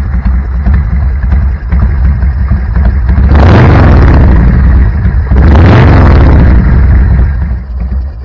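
A Big Dog chopper's 107-cubic-inch V-twin engine idling through chrome exhaust pipes with a loud, lumpy rumble. It is revved twice, about a second and a half each, starting a little over three seconds in, then drops back to idle.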